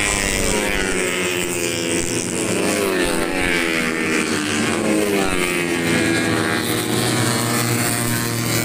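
Four-stroke 150cc underbone race motorcycles running at high revs, several engine notes overlapping and rising and falling in pitch as the bikes pass.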